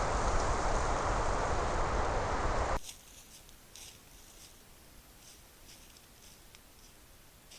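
Wind buffeting a trail camera's microphone, a heavy rumbling noise that cuts off abruptly after about three seconds. Then the woods are quiet, with faint, scattered high ticks.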